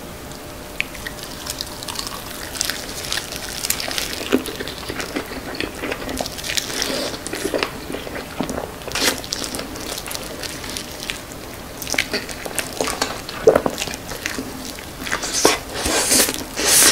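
Close-miked chewing of a whole sauced grilled chicken leg taken in one mouthful: wet, sticky mouth sounds with many small clicks. The sounds get louder near the end as the bone is drawn from the mouth.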